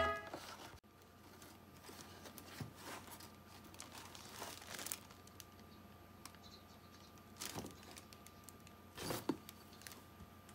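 A cat rustling, scratching and tearing at a corrugated cardboard box: scattered faint crinkles and scrapes, with a few louder rustles around the middle and near the end. A snatch of music cuts off abruptly under a second in.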